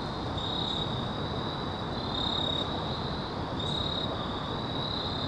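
Evening insect chorus of crickets: a steady high-pitched trill that swells and fades, over a low even hiss.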